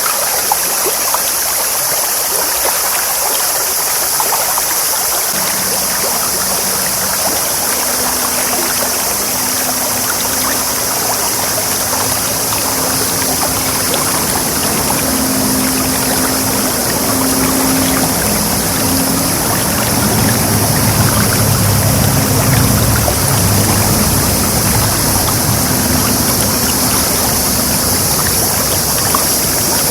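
Clear stream babbling steadily over rocks. About five seconds in, a low engine drone from a passing vehicle or boat comes in under the water sound, loudest a little past the middle, then easing.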